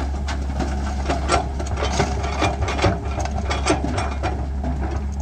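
A bucketload of earth and stones dropping from an excavator into a tractor's metal trailer, a run of rattling, clattering knocks over the steady drone of idling diesel engines. The clatter dies away near the end.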